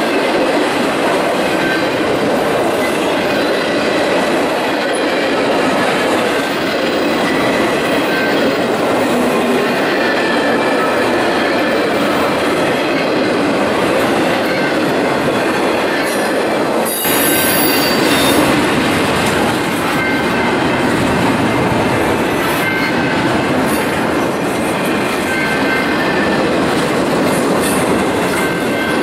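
Intermodal freight train cars rolling past close by: a steady rumble of steel wheels on rail, with thin, high wheel squeals running through it. A brief louder hiss comes a little past halfway.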